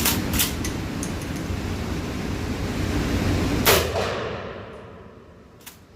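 A single shot from a Kel-Tec KSG 12-gauge pump-action shotgun about four seconds in, preceded by a few small clicks. A sharp click follows near the end.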